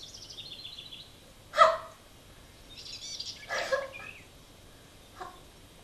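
Bird-like chirping made on stage: a quick falling trill of high chirps, a short loud squeak about a second and a half in, then more chirps and a second squeak around three and a half seconds, and a faint chirp near the end.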